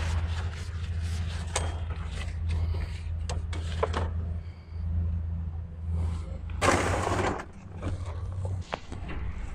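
Hands working a new rubber alternator belt down around the engine's pulleys: scattered light knocks and clicks of the belt against metal, and a longer rasping scrape about seven seconds in, over a steady low hum.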